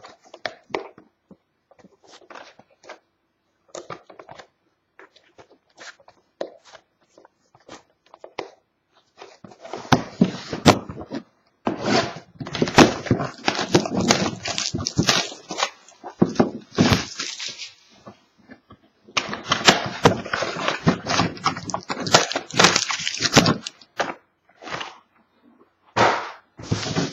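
Trading-card pack wrappers being handled, torn open and crinkled. It starts with scattered light taps and clicks, and from about ten seconds in there are long stretches of dense crinkling and tearing.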